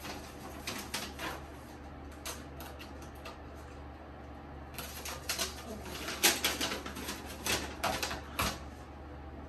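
Paper rustling and crinkling as a folded instruction leaflet is handled and opened: a few short crinkles in the first second or so, then a busier run of crinkling in the second half.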